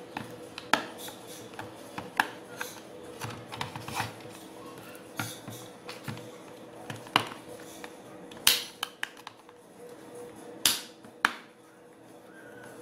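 Plastic snap-fit clips of a WD My Passport external hard drive's case clicking and snapping as a thin metal pry tool is worked along the seam. The clicks come irregularly, with the loudest two in the second half, over a faint steady hum.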